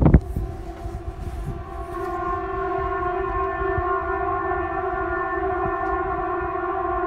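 A steady, many-toned blare, like dozens of car horns sounding at once, swells in about two seconds in and holds level; it is most likely a civil-defence warning siren being tested. Wind buffets the microphone at the start.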